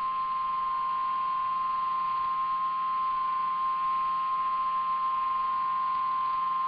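National Weather Service warning alarm tone: a single steady 1050 Hz beep, held unbroken and loud. It is the attention signal that comes before a flash flood warning message.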